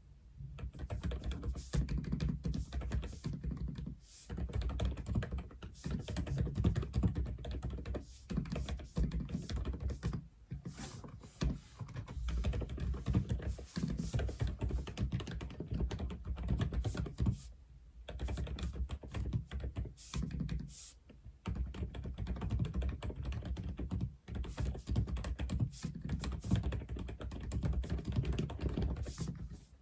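Steady fast typing on an Aula F87 mechanical keyboard, dense runs of key clacks with a deep low thock, broken by brief pauses every few seconds.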